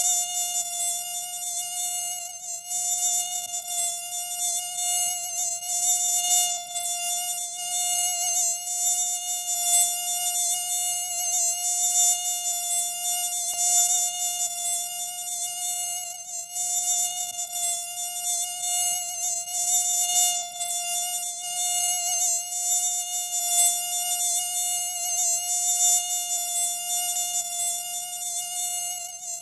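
Mosquito whining in flight: a steady, high-pitched hum whose loudness swells and dips as it moves.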